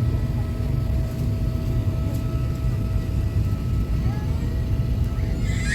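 Airbus A380 cabin noise: a steady low rumble with faint steady hum tones running through it. A brief high sound comes right at the end.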